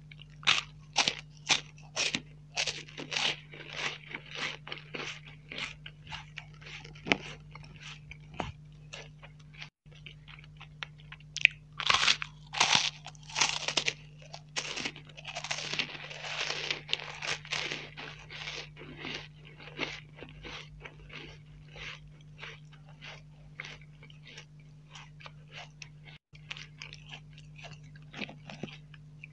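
Close-miked biting and chewing of crisp cream-filled wafer bars: a run of sharp, dry crunches, thickest and loudest about twelve seconds in, then thinning out into softer chewing.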